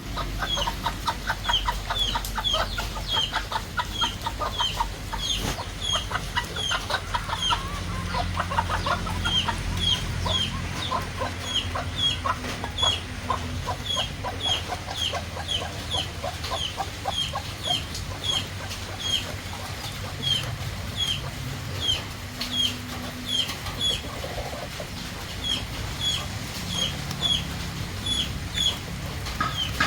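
Chickens clucking and peeping: a steady run of short, high, falling peeps about three a second, with fast low clucking over the first nine seconds or so.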